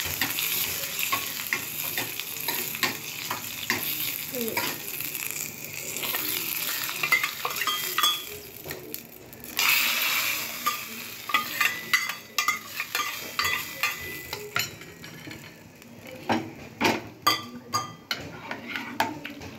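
Cumin, onion and curry leaves sizzling in hot oil in a small steel tempering pan while a ladle stirs and scrapes. About ten seconds in there is a brief louder hiss as the tempering goes into the dal kurma, then a ladle stirs, scrapes and clinks against the steel pot, the clinks sharpest near the end.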